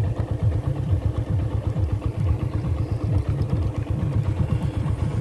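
Motorcycle engine running steadily, heard from the bike itself while riding along a rough dirt track, with an uneven low rumble.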